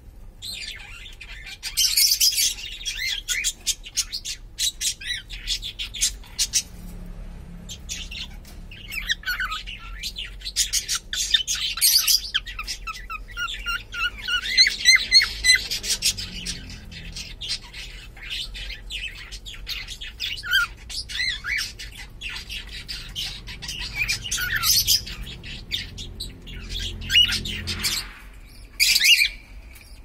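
Cockatiel chirping and calling: runs of short, quick chirps, with a few clearer whistled notes around the middle and near the end.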